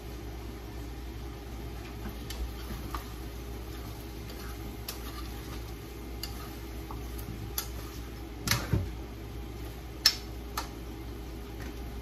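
A metal utensil stirring chicken pieces in a frying pan, clinking and scraping against the pan a few times over a steady hum. The loudest knock comes about ten seconds in.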